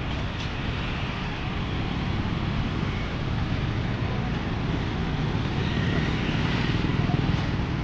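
A low, steady engine rumble that swells a little near the end.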